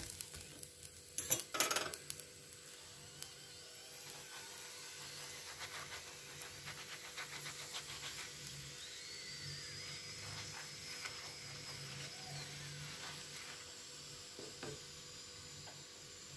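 Oiled mooli paratha sizzling steadily on a hot tawa as it is pressed with a spatula to crisp it. A few sharp knocks sound in the first two seconds.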